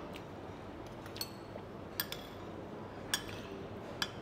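Cutlery clinking against plates and bowls while eating: about five sharp clinks roughly a second apart, some ringing briefly.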